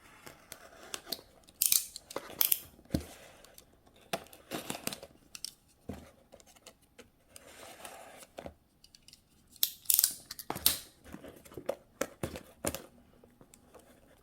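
A small parcel being opened by hand: scattered snips, rips and crinkles of tape and packaging at irregular intervals, with a few louder sharp ones.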